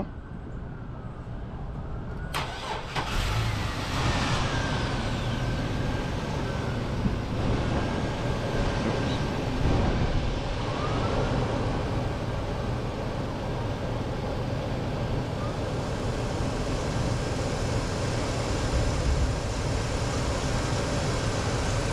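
Car engine being jump-started on a flat battery: it catches about three to four seconds in and then runs steadily.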